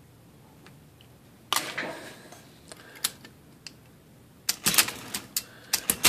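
Sharp metallic clacks from an IBM Selectric II typewriter's mechanism. A single clatter comes about a second and a half in, then a few scattered clicks, then a quick run of clacks in the last second and a half.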